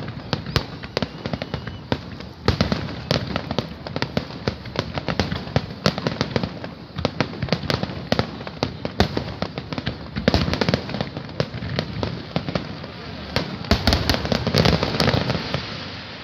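Aerial fireworks display going off: a dense, continuous run of sharp bangs and crackling bursts, several a second, with heavier clusters about two and a half seconds in and near the end.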